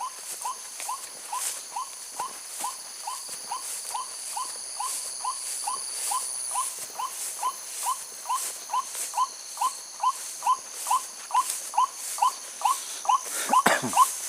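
White-breasted waterhen call played as a lure: a short rising note repeated with machine-like regularity about twice a second. A steady high insect whine runs underneath, and a brief louder rustle or knock comes near the end.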